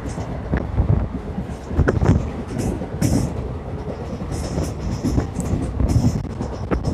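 Passenger train of the Triveni Express running on the track: a steady rumble with irregular knocks and clicks from the wheels over the rails.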